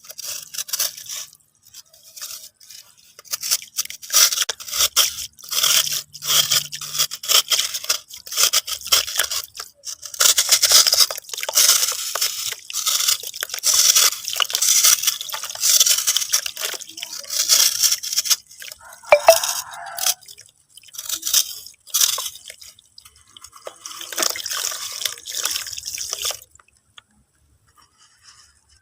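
Crisp, dense crackling and crunching of a brittle "dry water" material being crumbled. There is a brief squeak about two-thirds of the way through, and the crunching stops a couple of seconds before the end.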